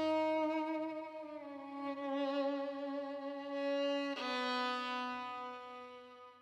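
Trailer score: a slow violin melody of long held notes with vibrato, stepping down in pitch, with a fresh bowed note about four seconds in. It fades away near the end.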